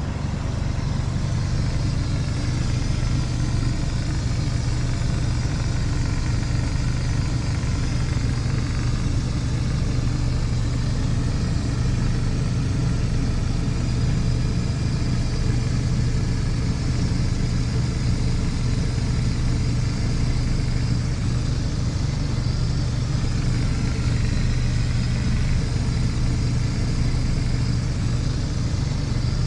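Steady low mechanical hum of an engine or motor running continuously at an even level.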